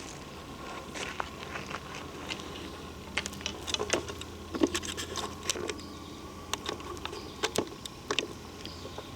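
Scattered light clicks and crunches at an uneven pace: footsteps on a forest trail mixed with handling noise from a handheld camera, over a faint steady hum.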